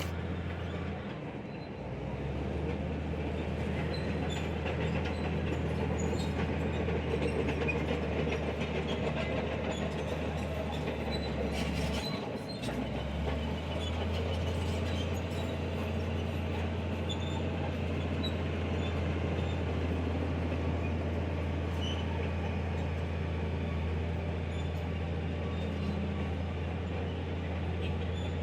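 Crawler bulldozer's diesel engine running under load, with clanking and squealing from its steel tracks; the engine note dips briefly about twelve seconds in, then picks up again.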